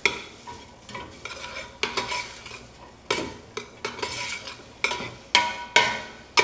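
Spoon scraping and clinking against the inside of a stainless steel stockpot as chopped onion is stirred in hot olive oil, in irregular strokes with a brief metallic ring, over a light sizzle of the onion sweating in the oil.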